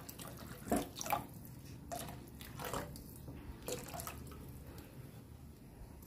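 Water poured in a thin stream into a pan of thick tomato-coconut masala and stirred in with a wooden spatula: soft splashing and dripping, with a few irregular wet plops about a second apart.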